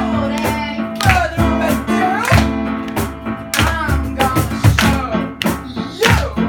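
Music: guitar with a singing voice and sharp percussive hits.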